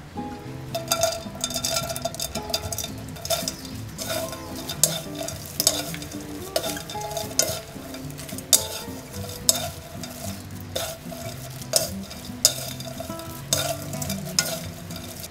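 Dried medium anchovies tipped into a stone-coated frying pan and tossed with two wooden spatulas: irregular dry rattling and scraping of the small fish against the pan, a few strokes a second.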